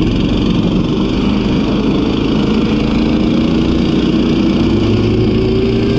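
КС Мото motorized towing dog (a tracked snow tug with a small petrol engine) running steadily under way, its engine note rising slowly as it gathers speed.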